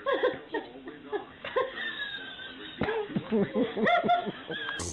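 A person laughing.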